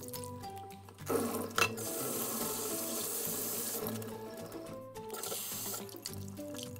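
Kitchen tap water running and splashing in a stainless steel sink as hands rinse the salt off cut white radish sticks in a metal bowl. The water starts about a second in and eases off about five seconds in. Light background music plays underneath.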